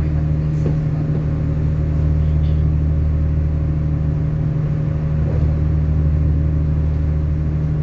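Cabin sound of an Iarnród Éireann 29000 class diesel multiple unit under way: a steady low hum from the underfloor diesel engine and drivetrain, with the rumble of the wheels on the track.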